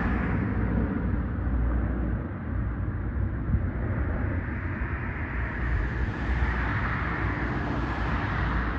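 C-130 Hercules four-engine turboprop flying over in formation with smaller propeller planes: a steady low drone that eases off after the planes pass overhead and builds again about six seconds in.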